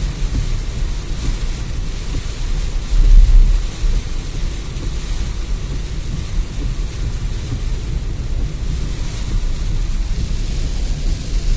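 Heavy rain falling on a moving car, heard from inside the cabin: a steady hiss over a deep, continuous rumble that swells briefly about three seconds in.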